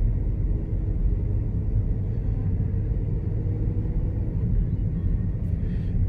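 Steady low rumble of a car's engine and tyres, heard from inside the cabin as the car drives.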